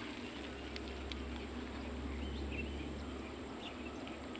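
Rural field ambience: insects such as crickets keep up a steady high-pitched drone, with a few faint short chirps from about two seconds in.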